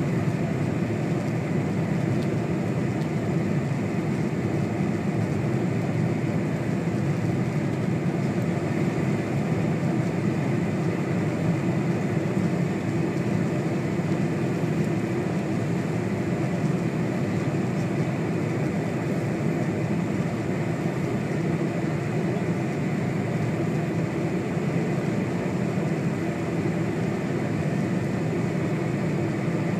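Steady low rumble of a jet airliner's engines and airflow heard inside the passenger cabin during descent.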